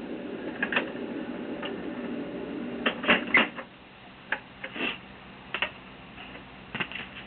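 Fisher-Price toy record player running with a steady low hum that stops about three and a half seconds in, amid clicks of plastic being handled. Then a few scattered sharp clicks and taps follow.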